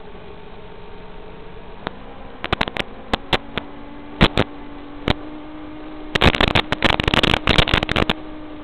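Hiss and steady hum from an analog FPV video receiver's audio. Sharp crackles of static come in from about two seconds in and thicken into a dense burst of crackling from about six to eight seconds: the radio link is breaking up at range.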